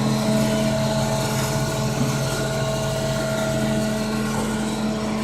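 Steady hum of an electric motor driving the paving-tile press's machinery, running without change.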